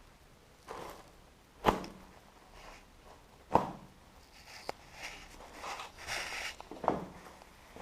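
Three sharp thuds, roughly two seconds apart, with lighter knocks and a stretch of scuffing and rustling between the second and third.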